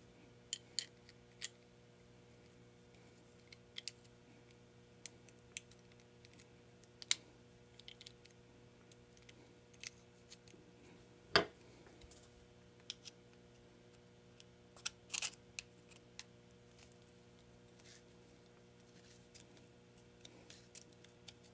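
Small metal parts of a chainsaw oiler clicking and tapping as they are handled and fitted together by hand, with one louder knock about halfway through and a short cluster of clicks a few seconds later. A faint steady hum runs underneath.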